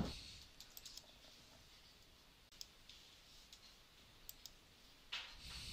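Near silence with a few faint, scattered clicks from the computer as a password is entered, and a soft rush of noise near the end.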